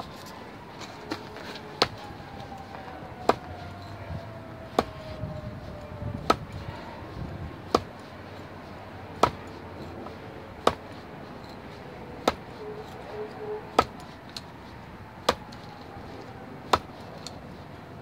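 Benchmade Bushcrafter's S30V steel drop-point blade stabbed point-first into a block of hard wood, again and again: sharp knocks about every one and a half seconds, around a dozen in all.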